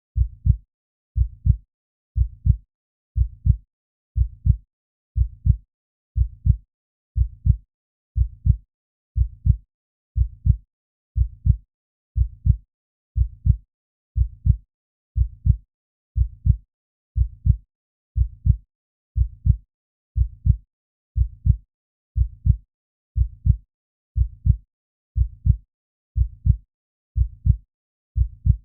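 Heartbeat sound effect: a steady lub-dub of two low thumps close together, repeating evenly about once a second.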